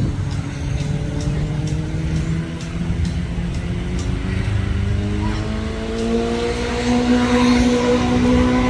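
A motor vehicle's engine accelerating, its pitch rising slowly and steadily as it grows louder toward the end, over a low rumble.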